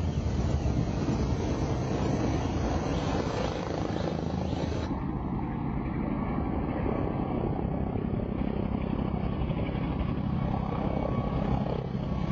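Mi-24 attack helicopter in low flight: fast, steady rotor blade beating over the whine of its turbine engines. The sound changes abruptly about five seconds in.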